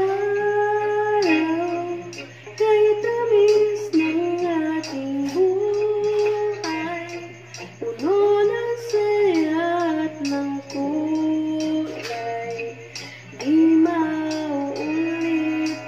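A female voice singing a slow melody into a handheld karaoke microphone over a karaoke backing track, in phrases with long held notes.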